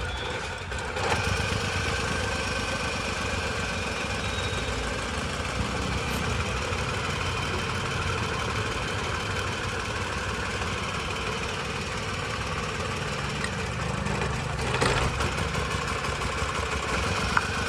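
Maruti WagonR three-cylinder petrol engine idling with a misfire on cylinder 2 (code P0302), which the mechanic traces to a cracked ignition coil and worn spark plug.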